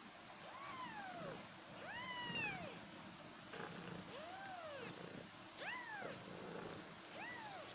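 Newborn kittens mewing: about five short, thin, high calls, each rising and then falling in pitch, a second or so apart.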